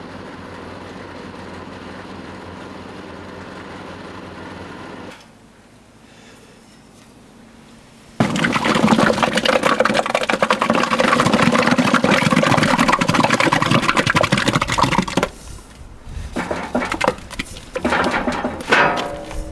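Honda-engined OBRA petrol cement mixer running, its tipped drum pouring a thin, wet cement slurry into a bucket: a loud, dense rush of liquid and churning for several seconds, followed by clunks and rattles. A steady engine hum comes first.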